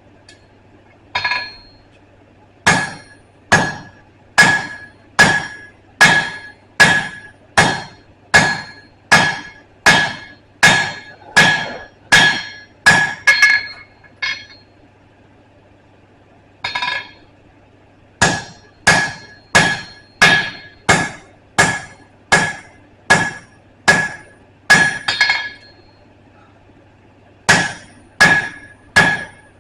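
Forging hammer striking steel on an anvil in steady runs of blows, about one and a half a second, each blow leaving a bright ring. The hammering stops twice for a couple of seconds, about halfway through and near the end, before starting again.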